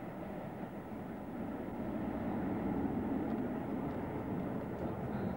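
Jet noise from a C-17 Globemaster III's four Pratt & Whitney F117 turbofans as the transport banks away: a steady, low rumble that grows a little louder about two seconds in.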